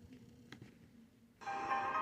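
A short electronic melody of several quick notes, like a phone ringtone or alert chime, starts about one and a half seconds in after a quiet stretch with a faint low hum.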